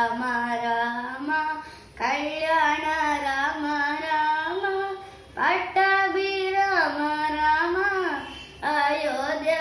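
A young girl singing a Telugu Carnatic devotional keerthana solo, in long held, gliding phrases with short breaks for breath about every three seconds.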